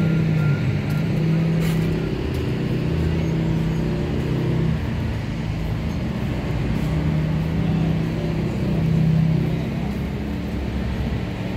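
A large vehicle engine idling, a steady low hum, with general traffic noise around it.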